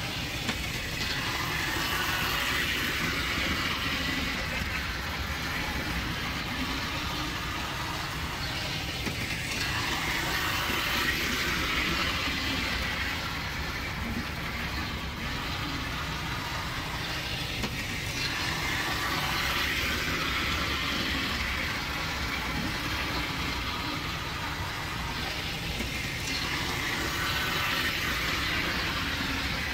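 Toy O-gauge 0-4-0 dockside switcher steam locomotive with tender running on three-rail track: a steady motor whir and rattle of wheels on metal rails, swelling about every eight seconds as it circles the loop.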